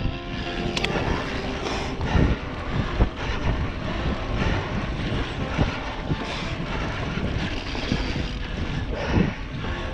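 Wind buffeting the microphone and tyre noise while a mountain bike is ridden along a trail, with gusts swelling and fading and a few sharp clicks and knocks about a second in.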